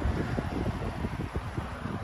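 Wind buffeting the microphone: an uneven low rumble in gusts over a steady hiss.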